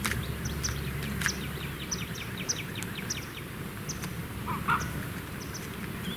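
Wild birds calling: short high chirps repeating, a quick run of a dozen or so notes in the first half, and a lower call a little before the end.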